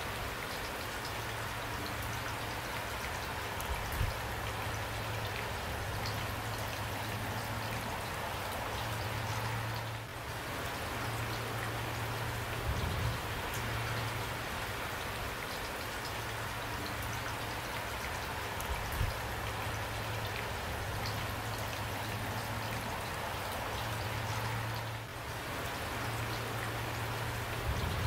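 Steady rain falling, a continuous hiss of drops, with a few brief low thumps scattered through it.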